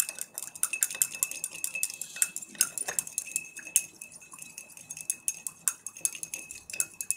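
A stirrer clinking against the inside of a small glass beaker as a salt solution is stirred: rapid, irregular clinks, several a second.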